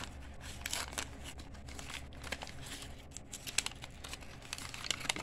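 Foil wrapper of a 1991 Upper Deck baseball card pack crinkling and tearing as it is pulled open by hand, an irregular run of sharp crackles.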